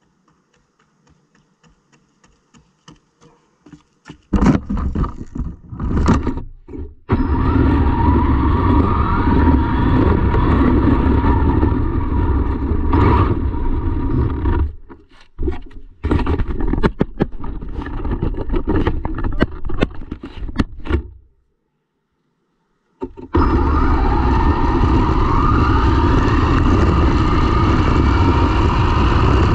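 RC car heard from a camera riding on it: the motor whines and rises in pitch as the car speeds up, over heavy rumble from the tyres on rough asphalt. The car stops and starts again twice, leaving brief quiet gaps.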